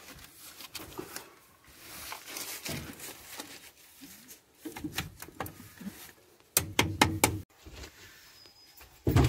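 Scattered knocks, clunks and clicks of a heavy bus battery being handled into its metal battery box and its terminals being fitted, with a cluster of sharper knocks about two-thirds of the way through and a louder clunk near the end.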